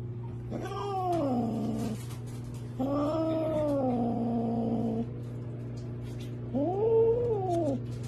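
Tabby cat yowling with a piece of shrimp held in its mouth: three long, drawn-out calls, each rising then falling in pitch, over a steady low hum.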